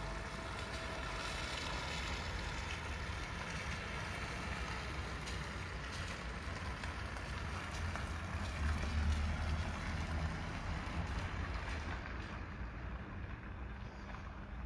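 Wind buffeting the microphone outdoors: a low rumble that swells about eight to ten seconds in, over a steady hiss.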